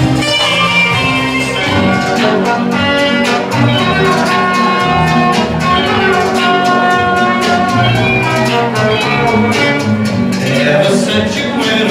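Popcorn oldies dance music playing, a full band record with a steady beat.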